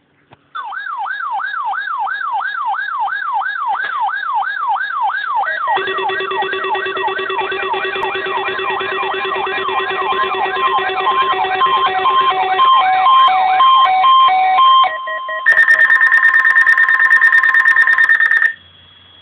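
Several weather alert radios sounding their alarms together, set off by a NOAA Weather Radio required weekly test. A warbling siren-like sweep, about three to four rises a second, starts first. About six seconds in, alternating beeps and a steady low hum join it. Near the end a loud, steady high tone takes over and then cuts off suddenly.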